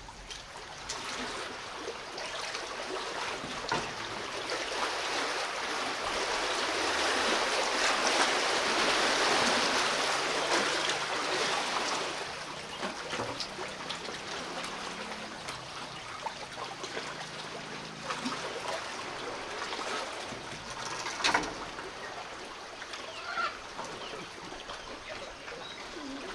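Large lake waves washing in against the shore, a splashing rush that swells to its loudest a third of the way in and then eases off. A single sharp knock sounds near the end.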